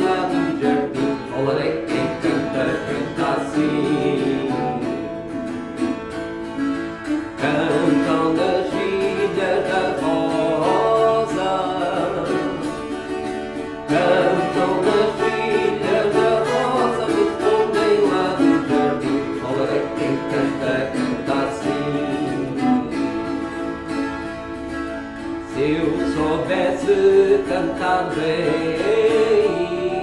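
A man singing a moda in long phrases, accompanied by two plucked Portuguese violas, one of them a viola campaniça.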